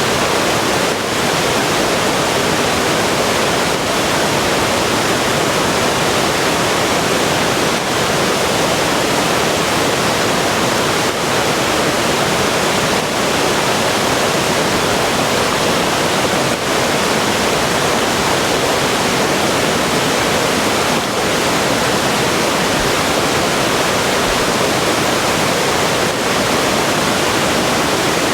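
Steady rush of river water flowing over rocks, an even loud wash of noise.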